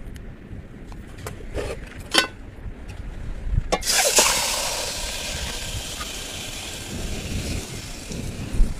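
A few light clicks and knocks, then a clatter about four seconds in as a whole raw chicken is lowered into a pot of water on a wood fire, followed by a hiss that slowly fades. Wind rumbles on the microphone throughout.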